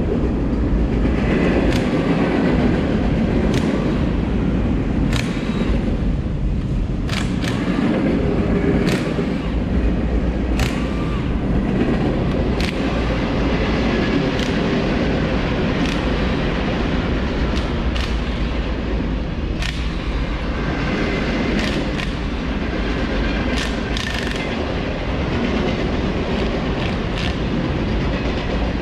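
Slow-moving freight train passing close by: a loud, steady low rumble with sharp clanks every second or two.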